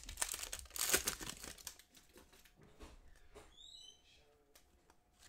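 Foil trading-card pack wrapper crinkling loudly as it is torn open, then quieter rustling and sliding as the cards are handled.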